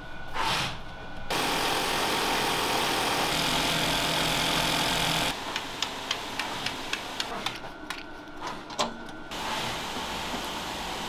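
A brief swish of hair drawn through a steel-pin hackle, then an industrial hair-wefting sewing machine running with a steady whir for about four seconds and stopping abruptly. A series of irregular light clicks and taps follows.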